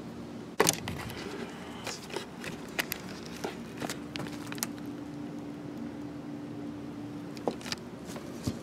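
Handling noise as the camera and the stunt scooter are moved about: a sharp knock about half a second in, then scattered light clicks and knocks. A faint steady hum runs through the middle.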